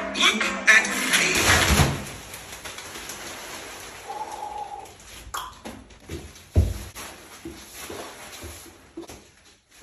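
Handling noises in a small room: scattered light knocks and one heavy thump about two-thirds of the way through, after a louder sound carried over from before cuts off about two seconds in.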